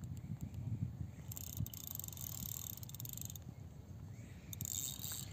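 Wind buffeting the microphone in a low, uneven rumble, with insects chirring in a high hiss that comes and goes and drops out for about a second near the end.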